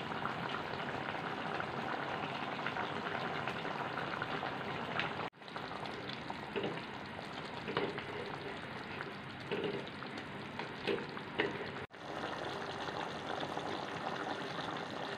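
Chicken curry gravy sizzling and bubbling in a nonstick pan as a steady hiss. Partway through, a spatula stirs the spices in, with a few short scrapes and knocks against the pan. The sound cuts out briefly twice.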